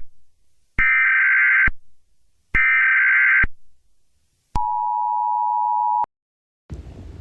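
Emergency Alert System tones: two harsh screeching data bursts of about a second each, then the two-tone attention signal held for about a second and a half and cut off abruptly.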